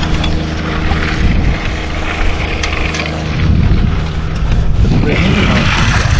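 An engine running steadily, with wind rumbling on the microphone that grows louder about three and a half seconds in.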